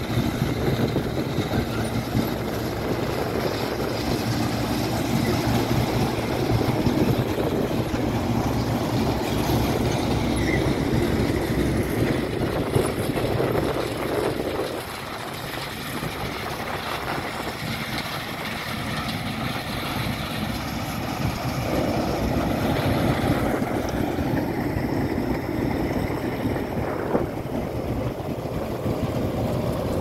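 Massey Ferguson 300 combine harvesters running in the crop: a steady mechanical din of engine and threshing machinery. The din dips for a few seconds about halfway through, then rises again.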